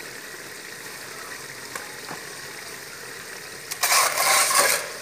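Steady hiss of spiced onion masala simmering in a metal pot on a gas stove, then near the end a loud sizzle lasting about a second as chicken pieces go into the hot masala.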